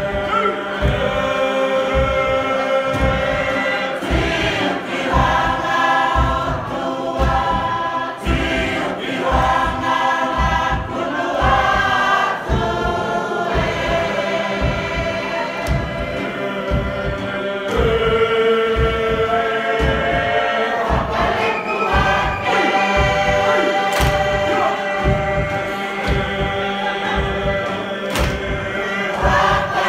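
A large group singing in chorus, a Tokelauan action song (fatele), over a steady low beat about twice a second.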